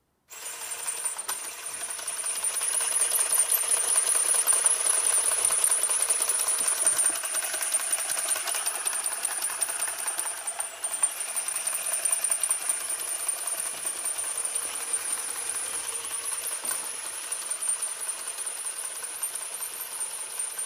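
Motorised Lego mechanism switched on and running: a small battery-powered motor drives plastic Lego cogs and a pulley with a steady high whine and continuous clattering rattle. It starts suddenly just after the opening and grows louder over the first few seconds.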